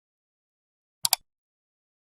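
Two sharp clicks in quick succession about a second in, after dead silence.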